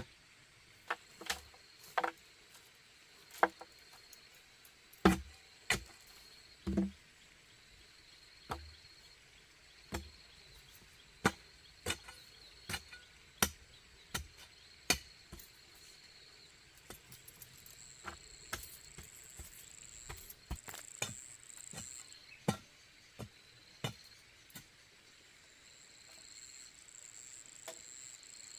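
A hand tool striking bamboo: a long series of sharp, irregular knocks, up to a second or so apart, loudest in the first half. Insects chirr steadily in the background, the higher one coming in stronger later on.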